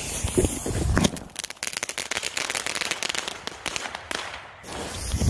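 A small ground fountain firework hissing as it sprays sparks, then from about a second in a dense run of rapid crackling pops lasting some three seconds before dying back to a hiss.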